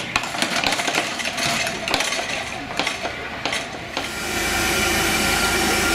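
Wooden railway level-crossing gates and their operating gear clattering as the gates are swung shut, with irregular clicks and knocks. About four seconds in this gives way to a louder, steady hiss with a low hum.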